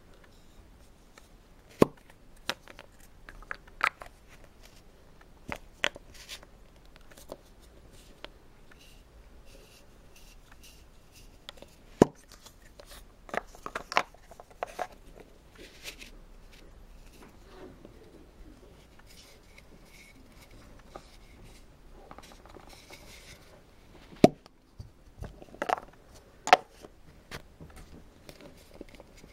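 Painted wooden nesting doll pieces being handled: scattered sharp wooden clicks and knocks as the hollow pieces touch and fit together, with soft rubbing of hands on the lacquered wood between them and a quick cluster of knocks near the end.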